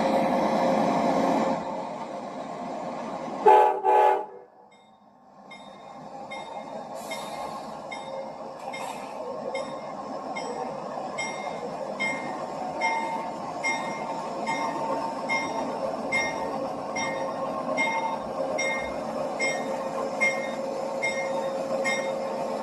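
Amtrak passenger locomotive horn sounding a chord that cuts off after about a second and a half, then two short blasts, the two-short signal that the train is releasing its brakes and moving off. After a short lull the train rolls out, its wheels clicking over the rail joints at a slow, even rhythm with faint wheel squeal.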